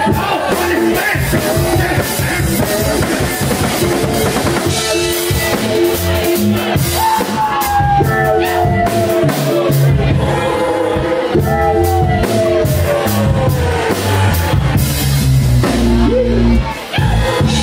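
Live funk/hip-hop band playing an instrumental passage: drum kit beat, bass guitar and electric guitar, with long falling pitch slides in the middle.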